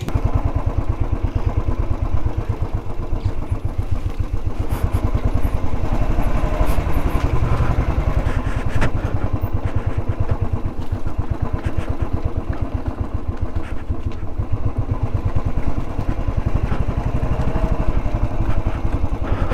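Motorcycle engine running steadily, with a rapid, even beat of firing pulses.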